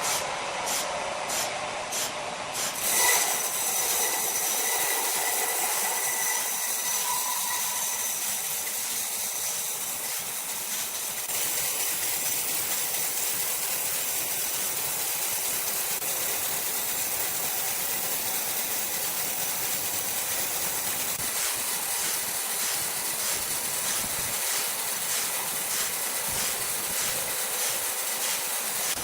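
Sawmill machinery running with a steady hissing noise. There is a short louder jolt about three seconds in, and the noise grows brighter about twelve seconds in.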